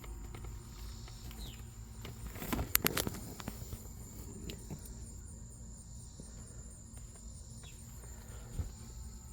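A few sharp metallic clicks about two and a half to three seconds in, and one more near the end, from a hand tool turning a lug nut down to pull a new wheel stud into the hub.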